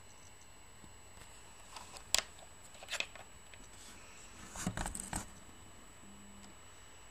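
Light clicks and rattles of a fingerboard being handled and turned over: a sharp click about two seconds in, another about a second later, then a quick cluster of clatters past the middle, over faint hiss.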